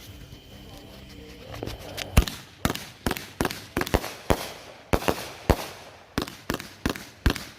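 Consumer firework cake ('Greedy' repeater) firing: after about two seconds of near-quiet, a rapid string of sharp bangs sets in at roughly two to three a second.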